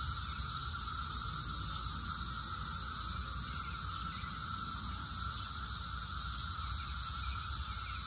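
Chorus of Brood X 17-year periodic cicadas: many males calling at once in a steady, unbroken drone, a constant high hum with a higher, hissing band above it.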